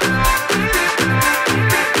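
Electronic dance music with a steady, driving beat.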